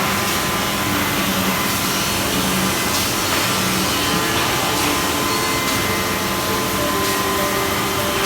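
Woodworking machinery running: a steady whirring noise with a faint constant hum in it.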